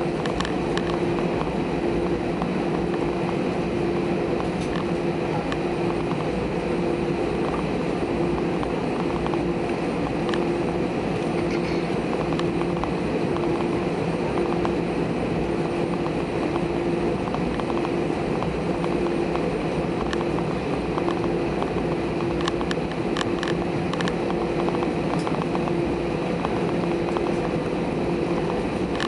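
Airbus A320 jet engines running at steady low power, heard from inside the cabin: an even rumble and rush of noise with a steady hum, without any spool-up, as the airliner taxis.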